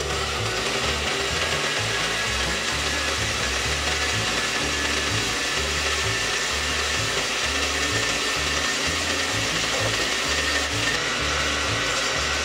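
Countertop blender switched on and running steadily at full speed, pureeing boiled vegetables with some of their cooking water into a smooth sauce.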